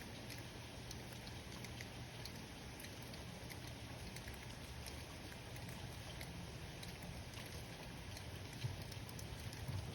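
Steady rain falling during a thunderstorm, with many individual drops ticking sharply and a couple of slightly louder taps near the end.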